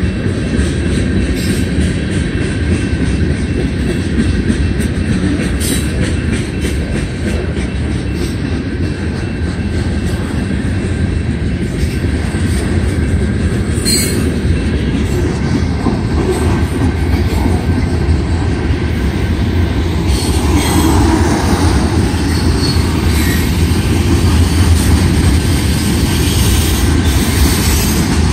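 Freight train cars rolling past close by: a steady rumble and clatter of steel wheels on rail, growing a little louder in the second half.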